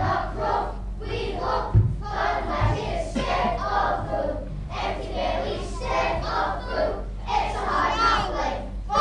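A group of children's voices calling out together in unison, in short phrases.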